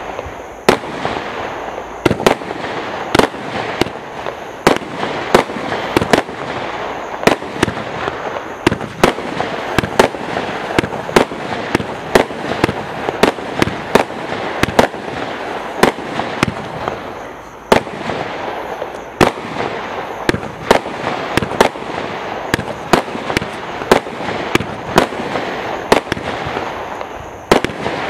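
Trafalgar combined firework cake by Total FX firing a rapid, continuous volley of shots, about two a second, with a dense crackle from the bursting stars filling the gaps between them.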